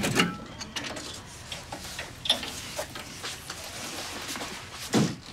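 Irregular light clicks and knocks, with a heavier knock at the start and a thud about five seconds in.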